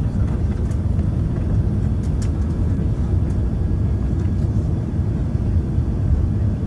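Steady low rumble inside the cabin of an Airbus A380 taxiing after landing, with a few faint clicks about two seconds in.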